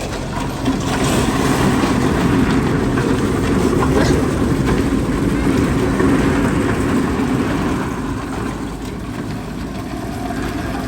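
A vehicle engine running steadily under load as it tows a wooden chicken tractor, the coop dragging over the ground on wheels that skid instead of turning.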